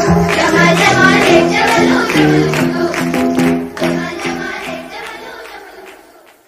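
Iranian Bandari-style song with a children's and women's choir singing over a repeating rhythmic melody, fading out to silence over the last few seconds.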